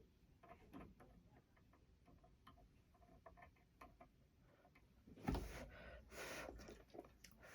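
Faint, scattered small clicks and taps from handling tools and parts while soldering. About five seconds in, a louder rustling scrape lasts for roughly two seconds.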